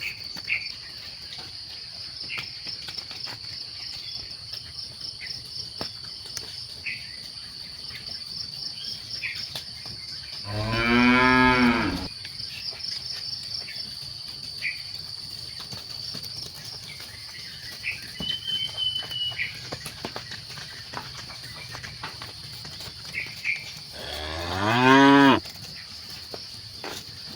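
Cattle mooing: two long, loud moos about thirteen seconds apart, one a little before the middle and one near the end. A steady high insect trill runs beneath.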